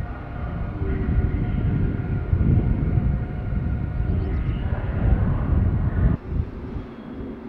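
Train moving in the station: a low rumble with a steady whine of several tones above it, which cuts off abruptly about six seconds in.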